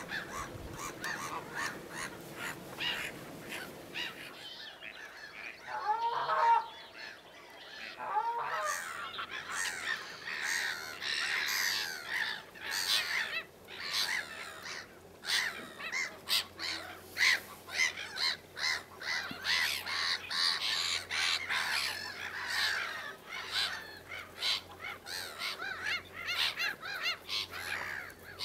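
Black-headed gulls calling: two separate calls a few seconds in, then from about nine seconds in a continuous din of harsh, overlapping calls.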